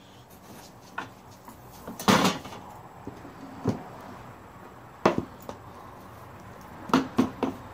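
Knocks and clatter from handling an opened welder's sheet-metal housing and its cables: about seven separate sharp knocks, the loudest a short rattle about two seconds in and a quick run of three near the end.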